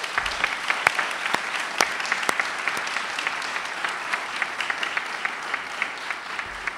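Audience applauding, many hands clapping at once. The applause swells quickly at the start and slowly tapers off.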